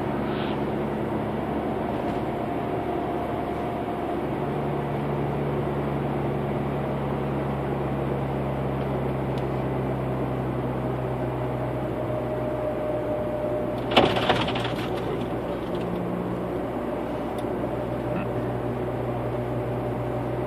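Car engine and tyre drone heard inside the cabin while driving, a steady hum. One sharp knock about two-thirds of the way through.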